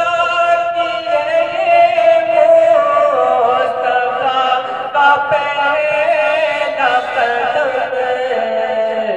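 A man chanting a devotional recitation solo into a microphone: one voice holding long notes and ornamenting them with glides and turns.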